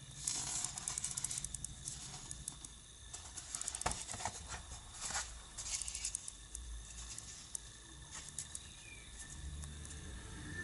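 Handling noise from a cardboard box and a knife in a nylon sheath: irregular rustles, scrapes and light clicks, with one sharper click about four seconds in.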